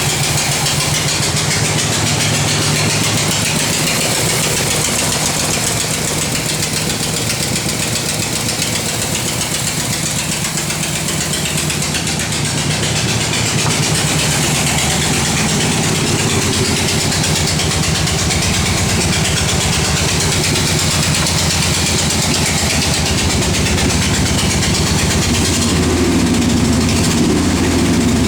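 1968 Corvette V8 idling steadily with a rapid, regular noise from the passenger side of the engine that sounds like a blown exhaust gasket. A new exhaust gasket has not cured it and the valvetrain checks out, so the owner suspects a worn rod bearing knocking.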